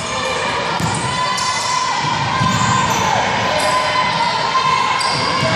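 Basketball dribbled on a hardwood gym floor, with spectators' voices in the background, echoing in the large hall.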